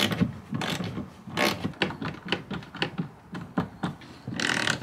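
Hand screwdriver driving screws to fasten a felt-covered plywood shelf, giving a run of short, uneven clicking strokes, a few a second, like a ratchet.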